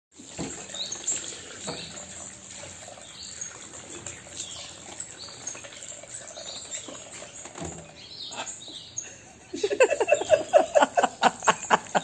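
Tap water runs into a stone sink while high bird chirps sound now and then. About nine and a half seconds in, a blue-and-gold macaw starts beating its wings in the water, making a rapid run of loud splashes.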